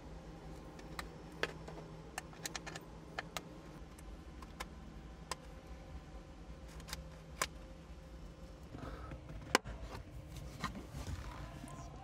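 Scattered small metallic clicks and taps as a hex key works the bolts of the pedal floor board and a metal pedal bracket is handled; the loudest click comes about nine and a half seconds in. A low steady hum lies underneath.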